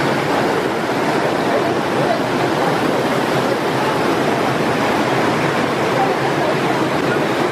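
Mountain-stream waterfall: a steady rush of water cascading down over rocks.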